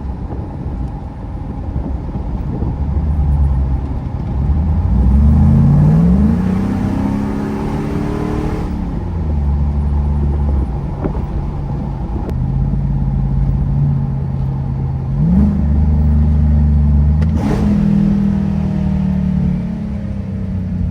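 Ford F-150's 5.4-litre three-valve V8 running through a Borla Pro XS muffler while driving: the engine note climbs twice under acceleration, each climb ending in a drop at an upshift, with steady cruising between. Heard from the cab with the windows down, over road and wind noise.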